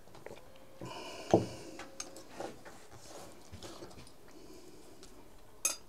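Table sounds of people eating cake and drinking tea: scattered light clicks and knocks of forks, plates and tea glasses. About a second in comes a louder clink that rings briefly.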